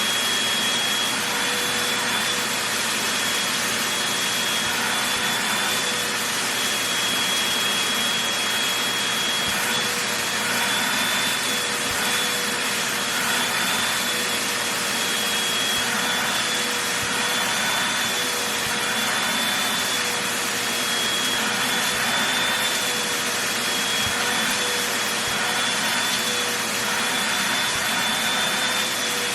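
Vacuum cleaner running steadily as it is passed over a fleece blanket, with a constant whine over the rushing air that wavers slightly in pitch.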